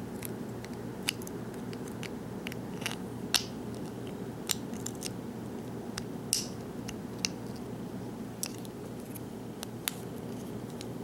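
Light, irregularly spaced metallic clicks and ticks from tools handling the pulled core of an American 5200 padlock, over a steady low hum.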